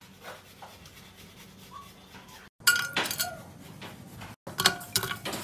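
Kitchenware clinking against a cooking pot: a series of sharp clinks, each with a brief ring, in two groups, the first about two and a half seconds in and the second near the end.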